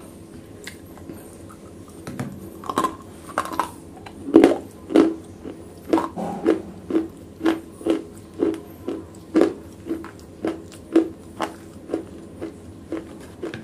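Close-miked chewing of broken wet black slate, crunching in the mouth about twice a second from about two seconds in.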